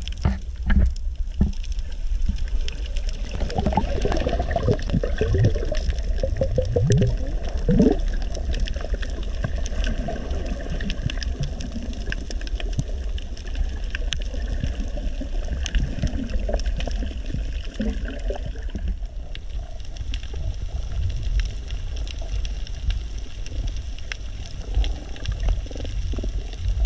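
Underwater sound picked up by an action camera while snorkelling: a steady low water rumble with many faint clicks, and bubbling gurgles for a few seconds near the start.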